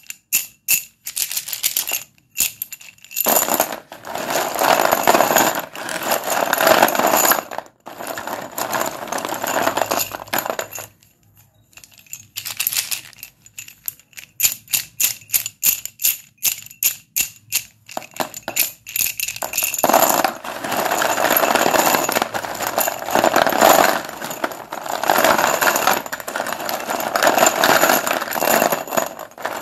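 White school chalk being snapped and crushed: quick runs of sharp cracks alternating with long stretches of dense crunching and crumbling.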